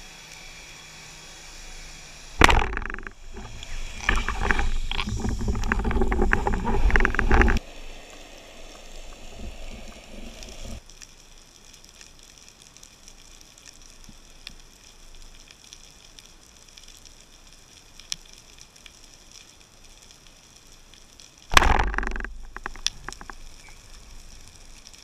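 Underwater sound heard through a dive camera's housing: a steady faint hiss. About two seconds in, loud rushing and knocking noise starts suddenly and lasts about five seconds; a shorter burst of the same comes near the end.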